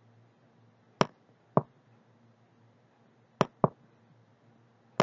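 Sharp clicks of the writing tool, in pairs, as the letters of "trip" are hand-written onto a digital worksheet: two about a second in, two more a little after three seconds, and another near the end.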